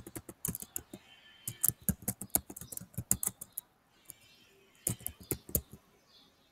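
Typing on a computer keyboard: quick runs of key clicks, a pause of about a second past the middle, then another short run of keystrokes.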